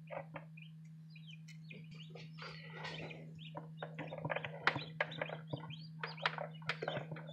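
Newly hatched Light Brahma chicks peeping in a run of short calls inside an incubator, busier in the second half, over a steady low hum.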